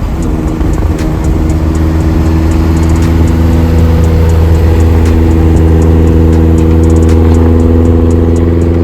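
A car engine running at steady revs while driving: an even droning hum that swells slightly over the first few seconds.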